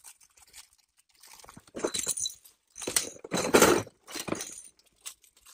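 Clear plastic packet crinkling and crackling as a small child handles it, in bursts about two seconds in and again between three and four seconds.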